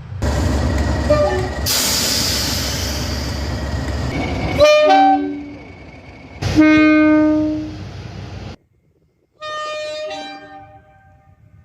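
Trains passing and sounding their two-tone air horns. A loud rushing rumble of a train going by, then two short horn blasts about two seconds apart. After an abrupt cut, another horn sounds for about a second and fades away.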